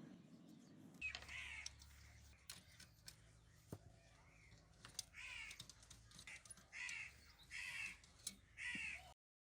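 Harsh bird calls, like a crow cawing: about five short caws spread over several seconds, cutting off abruptly near the end.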